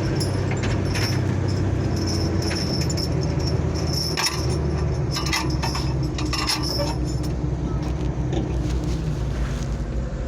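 Cat 320B excavator's diesel engine running steadily, with several metallic clanks and squeaks from the steel tracks and linkage as the machine is positioned on a truck bed, about four and six seconds in.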